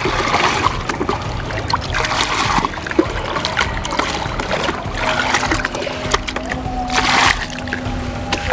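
Pond water splashing and pouring as a plastic bucket is dipped, swished and lifted in the shallows, with water running out of it in several surges.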